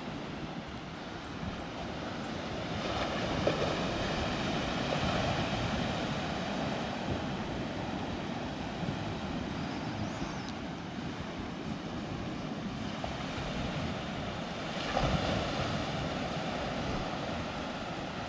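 Surf washing onto rocky shore below, with wind on the microphone; the wash grows louder about three seconds in and again around fifteen seconds.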